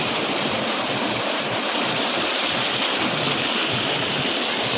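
Steady rush of water from Khandadhar Falls and the stream it feeds: a continuous even roar with no breaks.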